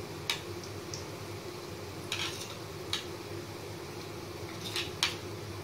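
Boondi (drops of besan batter) frying in a wok of hot oil with a steady low sizzle, batter dripping through a perforated metal ladle, with a few short metallic clicks of the ladle against the pan.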